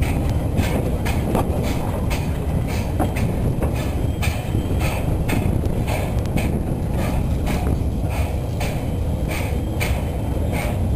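Narrow-gauge train running slowly, heard from aboard an open wagon: a steady rumble with a rhythmic clatter about twice a second.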